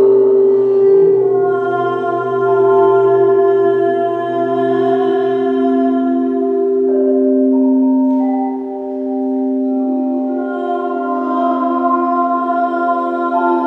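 Crystal singing bowls being played together: several long, steady ringing tones overlap. New notes join every few seconds as others fade.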